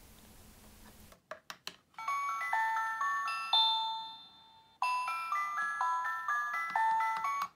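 A toy musical bridge plays a tune of bright chiming single notes in two phrases, with a short break between them. A few light plastic clicks come just before the tune starts, about a second in.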